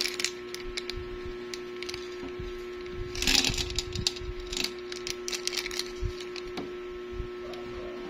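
Small silver grains poured from a plastic zip bag into a plastic tray: a quick rattle of clicks about three seconds in, with crinkling of the bag and scattered taps around it. A steady hum runs underneath.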